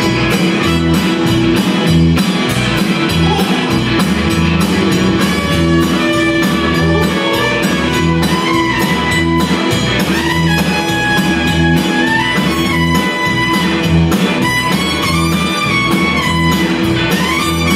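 Live Tex-Mex band playing: a drum kit keeping a steady beat under electric guitar, keyboard and button accordion, with a melody line gliding in pitch through the second half.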